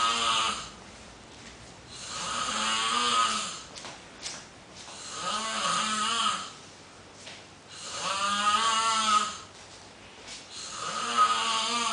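A sleeper snoring loudly and rhythmically, one buzzing snore about every three seconds: four full snores, plus the tail of one at the very start.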